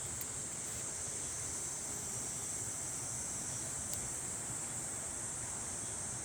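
Steady, high-pitched chorus of insects, with a faint low rustling noise underneath.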